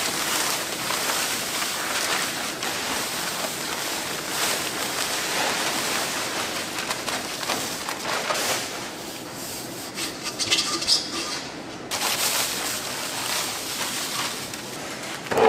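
Stainless-steel paddle mixer churning chili powder into a wet vegetable mash: a steady gritty hissing and rustling that cuts off sharply just before twelve seconds in and resumes.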